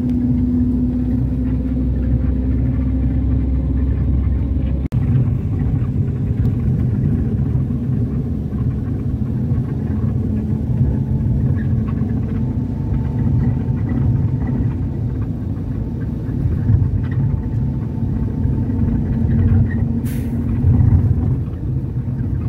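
Engine and road noise of a moving vehicle heard from inside it, a steady low rumble. It drops out briefly about five seconds in, and there is a short sharp click near the end.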